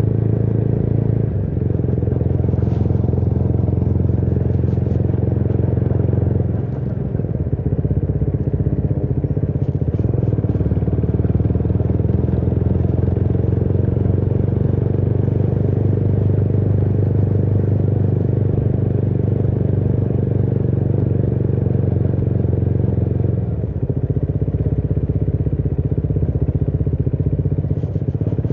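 Motorcycle engine running steadily while riding, heard from on the bike. The engine note drops briefly and changes pitch twice, once about a quarter of the way in and again near the end.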